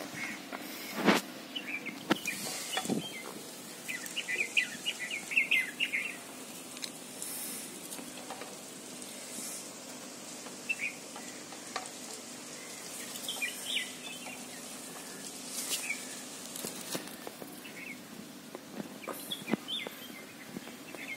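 Small birds chirping in short scattered bursts over a faint outdoor background, with a sharp knock about a second in and a few softer clicks.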